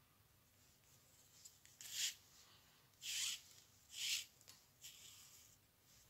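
Thin cord being drawn through the tight turns of a rope knob covering while stitching it in: three short rubbing rasps about a second apart, the middle one the longest, with a few faint handling clicks between.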